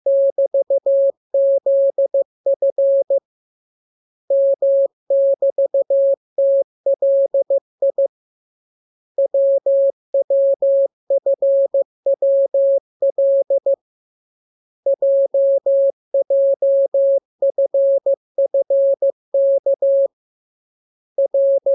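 Morse code practice tone: a single steady pitch keyed on and off in dots and dashes, sent as groups of characters with pauses of about a second between groups.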